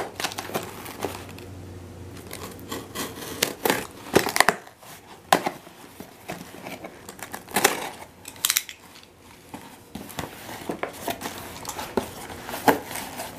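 A cardboard shipping box being opened by hand: a utility knife slitting the packing tape, the cardboard flaps scraping as they are pulled open, and plastic air-pillow packing crinkling. The sound comes as irregular short scrapes and rustles.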